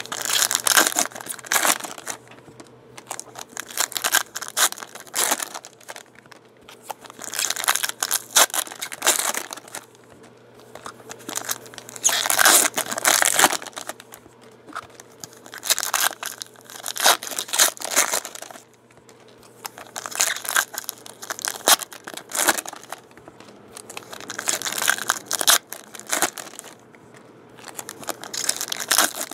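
Foil wrappers of Bowman Draft baseball card packs being torn open and crinkled one pack after another, a burst of crackling foil every three to four seconds.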